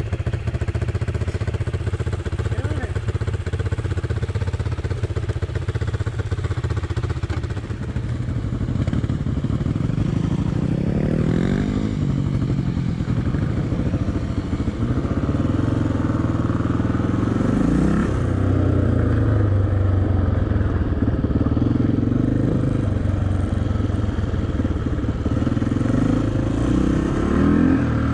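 Motorcycle engine running under way, its pitch rising and falling several times as the throttle is opened and closed.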